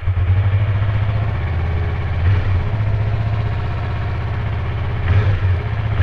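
Yamaha MT-25's 250 cc DOHC parallel-twin engine starting up and settling straight into a steady, powerful-sounding idle, with a brief swell in revs about five seconds in.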